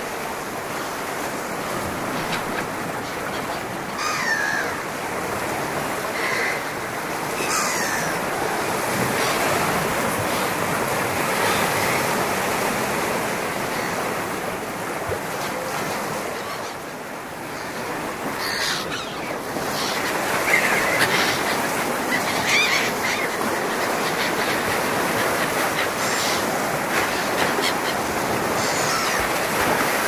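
Surf washing steadily over shoreline rocks, with a few short bird calls above it.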